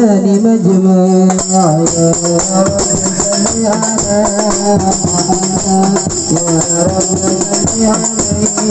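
Hadroh ensemble music: a young man singing into a microphone, joined about a second in by rebana frame drums playing a quick, steady rhythm with bright jingling highs.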